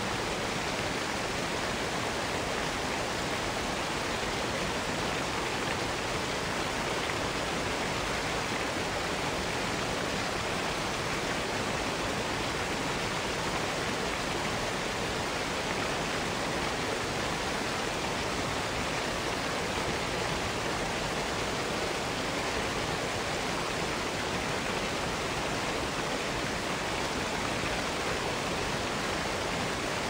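Waterfall rushing: a steady, even wash of falling water with no breaks or changes.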